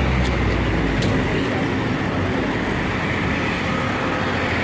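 Steady road traffic noise of engines and tyres, with a stronger low rumble in the first second.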